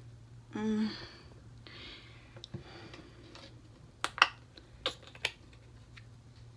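Small sharp plastic clicks and taps, four of them spread over about a second and a half past the middle, from handling a bottle of face lotion, with a brief short voice sound about half a second in and some soft rustling.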